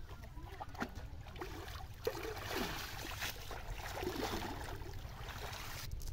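Shallow pond water sloshing and splashing as a man wades through it and hauls in a cast net, the splashing growing louder from about two seconds in.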